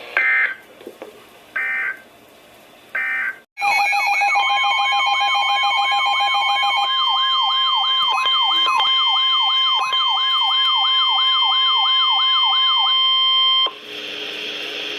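Emergency alert broadcast tones: three short bursts of digital data code, then a loud mix of alarm tones, a steady warning tone under a wailing siren-like sweep and several beeping tones, which cuts off near the end and leaves radio hiss.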